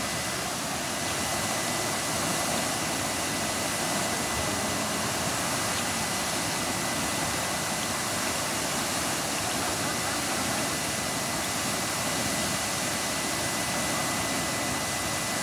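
Steady rushing of water spraying from a broken fire hydrant, with a thin steady high whine underneath.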